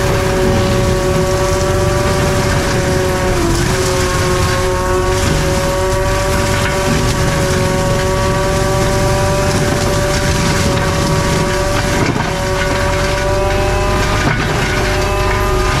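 CAT 259D3 compact track loader running an FAE forestry mulcher: a loud, steady whine from the spinning mulcher over the diesel's running. The pitch sags briefly about three and a half seconds in and again around twelve seconds, as the drum takes load biting into brush.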